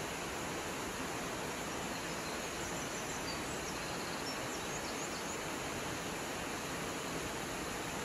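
Gyojataki Falls' waterfall pouring into its plunge pool: a steady, even rush of falling water. A few faint high chirps come through a few seconds in.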